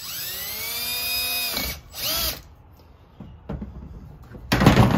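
Cordless drill running: its motor whines up in pitch, holds for about a second and a half, then winds down, followed by a second short burst. A brief loud noise comes near the end.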